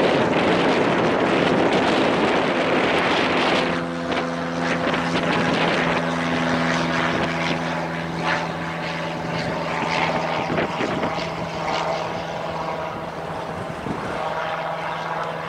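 Cessna 172 light aircraft's piston engine and propeller droning steadily as it climbs out after takeoff. The drone drops in loudness about four seconds in and then slowly fades as the plane flies away.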